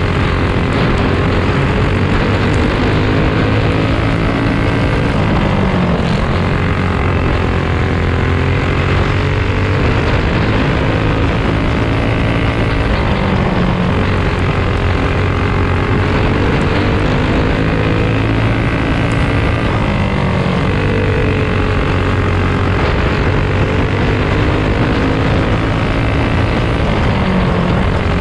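Onboard sound of a racing kart's small single-cylinder four-stroke engine running hard on a dirt oval. Its pitch sags and climbs again about every six seconds through the turns.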